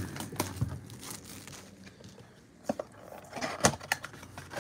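Cardboard trading-card blaster box being opened by hand: faint rustling with a few light taps and scrapes of the flaps and packs.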